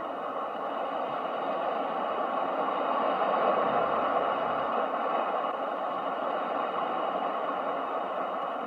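Ocean surf: a steady wash of wave noise that swells to its loudest a little before the middle and slowly eases off again.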